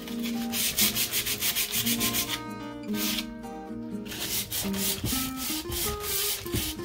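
Hand sanding a black-painted wooden picture frame with 150-grit sandpaper in quick back-and-forth scratching strokes, distressing the paint. There are two brief lulls around the middle.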